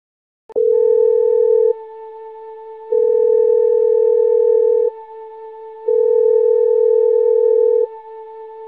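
A sustained electronic tone starts about half a second in and holds one pitch, swelling louder for about two seconds and dropping back for about a second in a repeating cycle.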